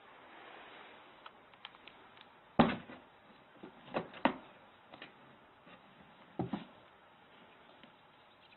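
Scattered soft knocks and thumps over a faint hiss, the loudest a little over two and a half seconds in, then a pair about four seconds in and another around six and a half seconds: a cat bumping and pushing against a cardboard box as it climbs through its holes.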